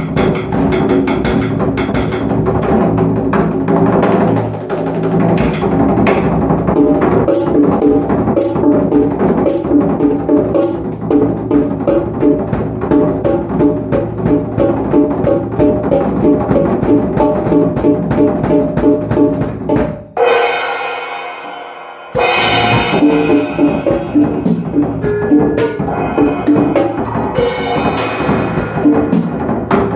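Solo drum kit played in a fast, steady rhythm: rapid strokes on pitched drums under regular sharp high accents. About two-thirds of the way through the playing stops for a moment on a single ringing note, then the beat starts up again.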